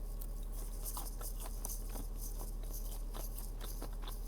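Close-up chewing and crunching of crispy fried food, a string of short, irregular crunches over a steady low hum.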